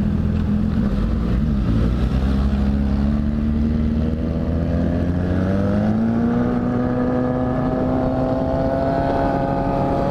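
BMW F800GS parallel-twin engine running under the rider. It holds a steady note, then rises in pitch from about four seconds in as the bike accelerates.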